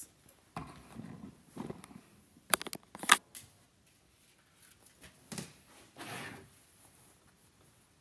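Cloth rustling as a bonnet's fabric is scrunched and pulled to work elastic through its casing. A quick cluster of sharp clicks about two and a half to three seconds in is the loudest sound.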